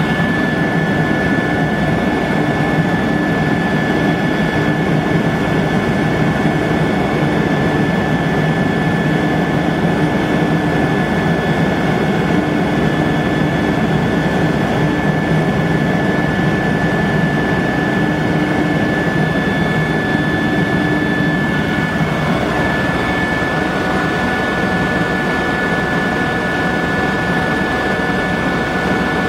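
Cabin noise of a 2001 Eurocopter EC120 Colibri helicopter in cruise flight: a steady turbine whine with several high tones over a constant rumble from the engine and rotors. One of the high tones shifts slightly in pitch about 22 seconds in.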